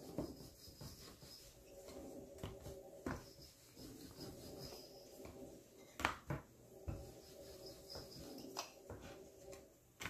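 Rolling pin working a ball of chapati dough flat on a wooden cutting board: soft rubbing as it rolls, with scattered light knocks of the pin and dough on the board, the sharpest about six seconds in. A faint steady hum lies underneath.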